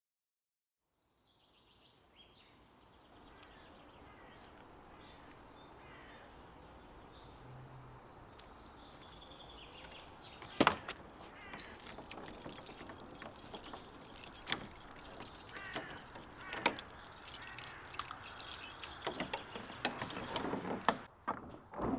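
Birdsong fades in over quiet outdoor air. From about halfway, sharp metallic clicks come, growing into steady jangling as a bunch of keys is worked at a padlock on a wooden door to unlock it.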